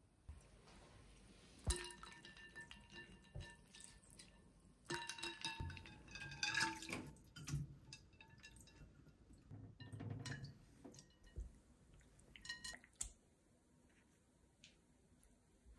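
Salmon pieces being handled in a glass bowl of water: soft water sloshing and dripping, with several sharp clinks of the glass bowl and enamel colander that ring briefly, the loudest about 2 s in, between 5 and 7 s, and near 13 s.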